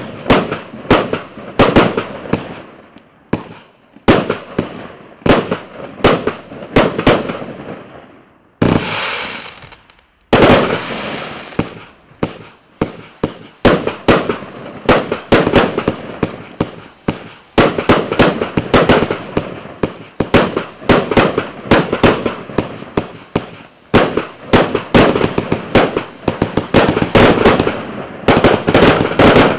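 A 100-shot, 30 mm consumer fireworks cake firing a fast, continuous string of bangs as its shots launch and burst, with a brief hissing stretch about nine seconds in.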